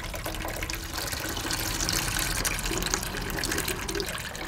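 Coolant draining from a disconnected cooling hose of a BMC 1.5 diesel engine into a plastic bucket, a steady pour that grows a little stronger about two seconds in, as the engine's cooling system is drained.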